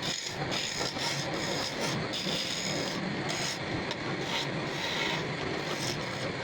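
A tool scraping and rasping against wood as a wooden cot leg is shaped, steady, with brief breaks every half second or so.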